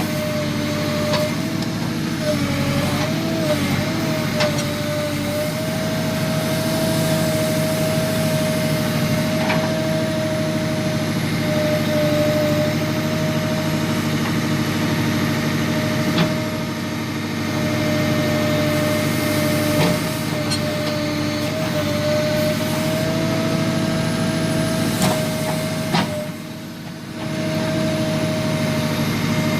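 Tractor loader backhoe engine running steadily, with a constant high whine over it and scattered sharp clicks and knocks. Near the end the level dips briefly, then comes back up.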